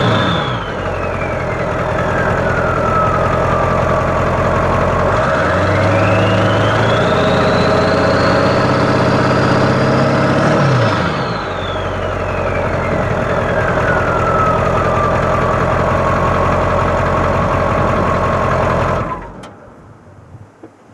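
1997 Ford F350's 7.3 Powerstroke V8 turbo diesel idling as its turbo whistle winds down. About five seconds in it is revved for several seconds, and the turbo whistle climbs high, then falls as the engine drops back to idle. The engine is shut off near the end.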